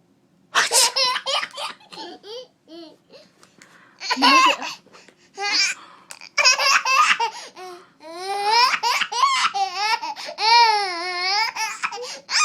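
Baby laughing in repeated bursts, then a long, high, wavering squealing laugh from about eight seconds in until near the end.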